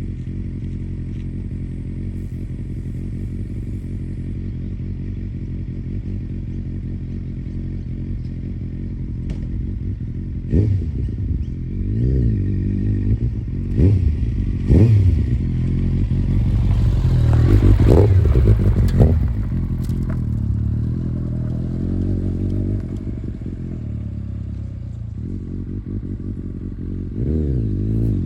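Kawasaki ZX-9R inline-four engine idling steadily through its exhaust, then revved in several short blips from about ten seconds in and held higher for a couple of seconds before settling back to idle. The revs rise again near the end.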